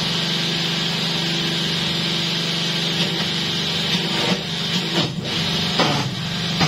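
Hydraulic press brake running with a steady hum while sheet-metal plate is bent into angles. A few knocks and changes in the sound come in the last few seconds.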